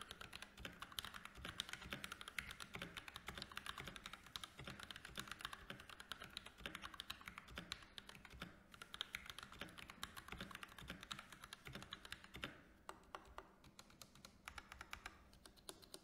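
Quiet typing on a GLORIOUS GMMK 2 mechanical keyboard with linear GLORIOUS Fox switches, its keystrokes muted by the sound-dampening foam inside the board: a fast, dense run of soft key clicks that thins out over the last few seconds.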